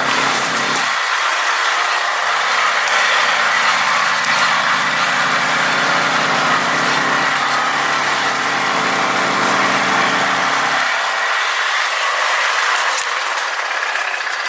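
A motor vehicle's engine running under a loud, steady rushing noise. The low engine note drops away about a second in, comes back a second later, and fades out a few seconds before the end while the rushing noise carries on.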